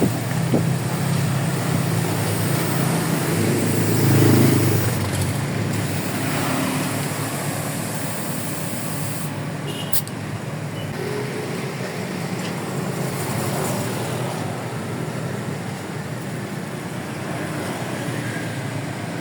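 Road traffic noise: vehicles running on the road, with one engine's low hum loud for the first few seconds, swelling about four seconds in and then fading.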